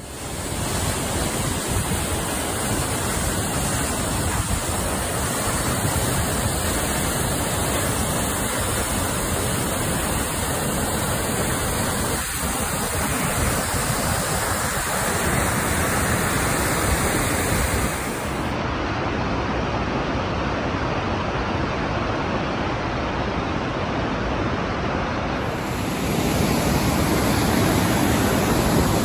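Rushing white water of a waterfall and a rocky mountain stream, a loud steady wash of noise. Its tone changes abruptly twice, once about two-thirds of the way through and again near the end.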